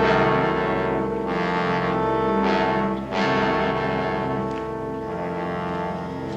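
Orchestral score music led by brass: held chords that swell in loudly, with fresh accents from the horns and trombones a few times before settling into sustained notes.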